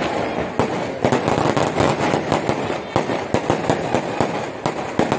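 Fireworks and firecrackers going off in rapid, irregular sharp bangs and crackles over a continuous din.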